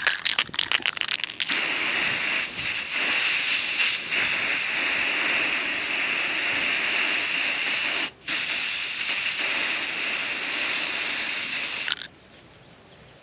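Aerosol spray-paint can hissing as black paint is sprayed: one long steady spray with a brief break about eight seconds in, cutting off about a second before the end. Before the spray starts, a second and a half of quick rattling clicks as the can is shaken.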